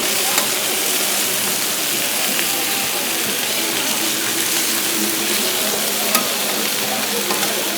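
Beef steak frying and sizzling with a steady hiss, with a couple of sharp clicks, one about half a second in and another near the end.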